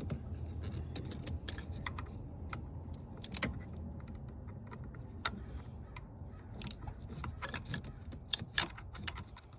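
Irregular light clicks and clinks of hand tools and metal parts being handled in a truck's engine bay, over a low steady hum.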